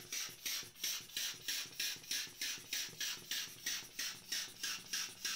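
Aftershave spraying from a squeeze-bulb atomizer: the rubber bulb is pumped over and over, each squeeze giving a short hissing puff of mist, about three puffs a second in an even rhythm.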